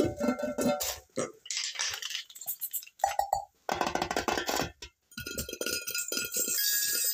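A quick run of short clinks, knocks and clatters from struck junk objects, edited together with brief silent gaps between them. A steady ringing tone is held over the last two seconds.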